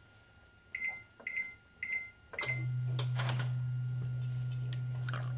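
Kitchen appliance keypad beeping four times, about half a second apart, as its buttons are pressed; on the last beep the appliance starts running with a steady low hum.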